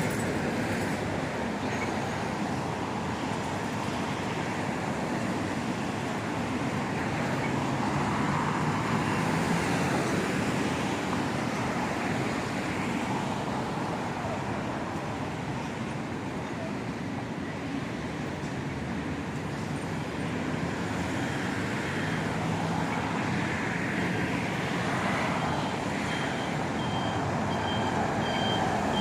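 City street traffic: cars and other motor vehicles passing in a steady wash of road noise that swells and eases. Near the end a faint high beep repeats about twice a second.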